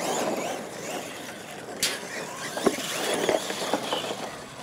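Radio-controlled monster trucks racing on a dirt track: their motors whine and tires scrabble, with a few sharp knocks partway through as a truck tumbles over.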